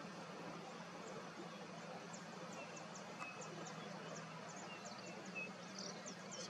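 Faint outdoor bush ambience with a steady low hum. From about two seconds in, a run of short, high chirps repeats two to three times a second.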